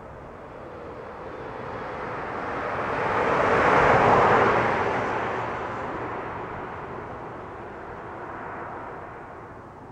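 A vehicle driving past at road speed, its tyre and engine noise swelling as it approaches, loudest about four seconds in, then fading away.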